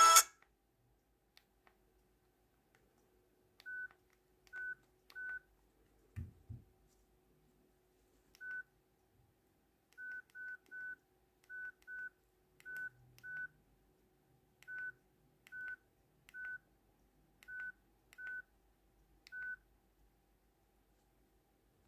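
ZTE A136G keypad beeps as its menu keys are pressed: about seventeen short beeps at one pitch, spaced irregularly. A low thump of the phone being handled about six seconds in.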